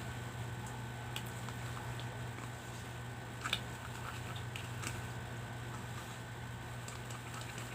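Homemade glue slime being mixed as it thickens with activator: scattered soft squishes and small sticky clicks, one sharper click about halfway through, over a steady low hum.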